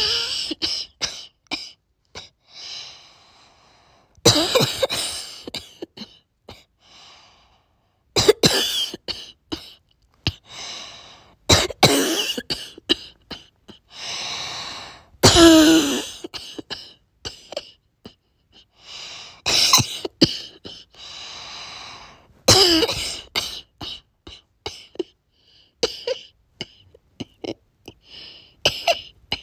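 Repeated fits of barky coughing, several sharp coughs at a time. Between the fits come drawn-out, whiny high-pitched breaths.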